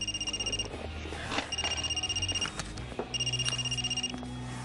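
Telephone ringing with an electronic trilling ring. Each ring lasts about a second, with a short pause between, and there are three rings.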